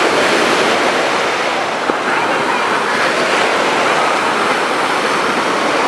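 Small waves breaking and washing up a sandy beach: a loud, steady rush of surf.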